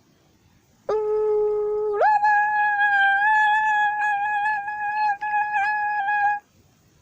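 Buzzy alert tone of a mock weather-radio warning: a short low note, then a jump of about an octave to a higher note held about four seconds with slight wavers, cutting off abruptly. It is the attention signal that comes before the flash flood warning is read.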